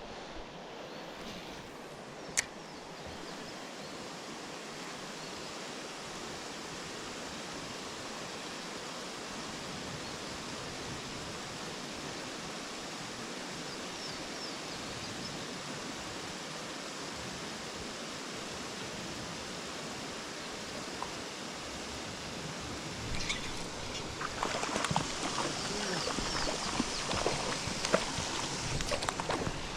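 Elk River water running steadily. A single sharp click comes about two seconds in, and near the end louder, uneven splashing water sounds come in.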